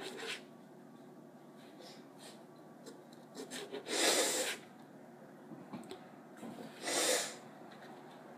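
A person snorting or sniffing hard through the nose twice, each a short breathy burst, about three seconds apart. Between them, faint taps of a knife slicing strawberries on the table.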